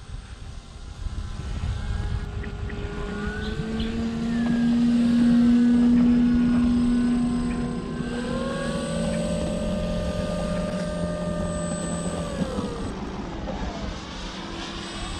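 Electric motor and propeller of a Flex RV-8 60E RC plane taxiing on the runway: a steady buzzing tone that swells about four seconds in, holds, then falls in pitch near the end as the throttle is eased back.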